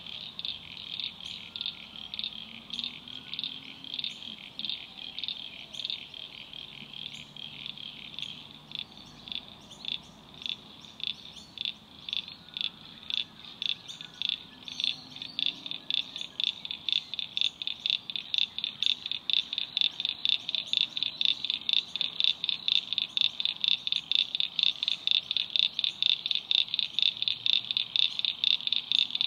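Frogs calling in a wetland chorus: a long run of short, high-pitched pulsed calls at about three a second. The calls overlap at first, then settle into one regular rhythm that grows louder through the second half.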